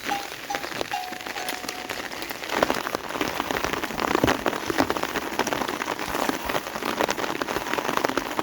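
Rain falling, a dense patter of drops hitting a surface, growing heavier and louder about two and a half seconds in.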